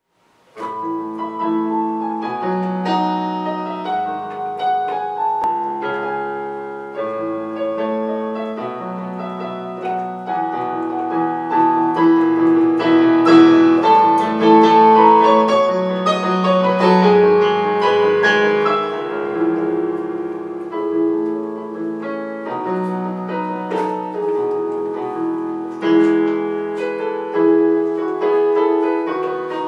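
Portable electronic keyboard played solo in a piano voice: a melody over held chords. It starts about half a second in and grows louder around the middle.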